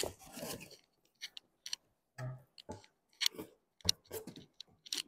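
Cardboard packaging being opened and handled: about ten irregular short scrapes, taps and rustles as the box top and a card insert are lifted, with a dull thud a little past two seconds.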